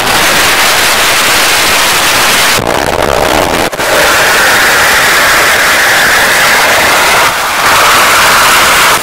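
Amateur nitro-fuelled rocket engine firing on a static test stand: a loud, continuous rushing noise. After a brief dip about four seconds in, a steady hissing tone rides on top of the rush.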